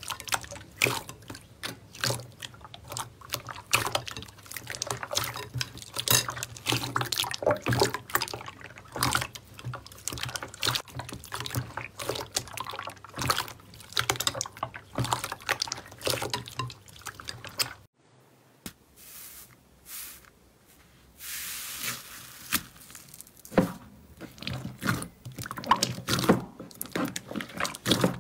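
Hands squishing and pressing clear purple slime in a glass bowl: dense wet squelches and clicking pops. About two thirds of the way through the sound drops off abruptly to a quieter stretch with a brief hiss, then the slime squishing starts again near the end.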